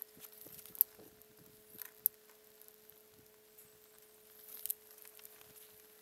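Faint, sparse crackles and sharp ticks from a small fire catching on a model hut of wooden sticks, over a steady faint hum. The loudest cracks come just under a second in, just after two seconds and shortly before the end.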